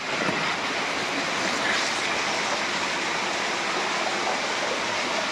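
Steady rush of falling water: an even hiss without break.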